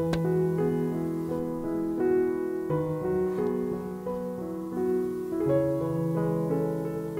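Background piano music: a calm melody over low held notes that change every second or two.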